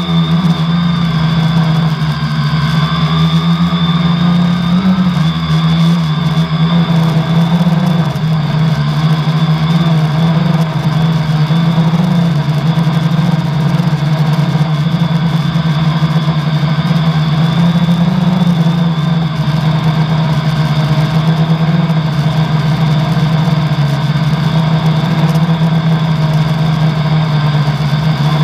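Quadcopter's 1000kv brushless outrunner motors spinning 10x4.5 props, a loud steady drone with a high whine, heard from a camera on the airframe; one motor has a bad bearing that can be heard in the flight.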